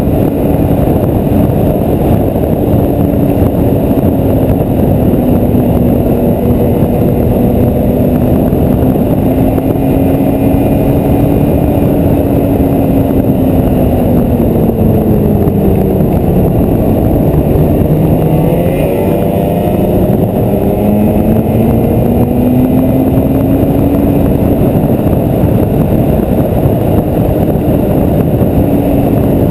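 A vehicle engine running under way over a constant loud noise. Its note holds steady, eases down about two-thirds of the way through, then climbs back up a few seconds later.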